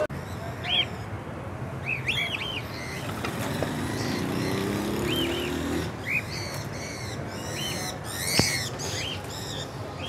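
Caged budgerigars and other small parrots chirping in many short, rising-and-falling calls, thickening into a dense chatter about six to nine seconds in. A single sharp click sounds near the end, over steady street background noise.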